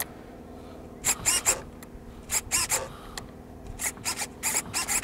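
RC model servos whirring in several short bursts, the pitch rising and falling as they drive the Fw 190A's flaps and control surfaces to and fro during a preflight control check. A faint steady hum lies beneath.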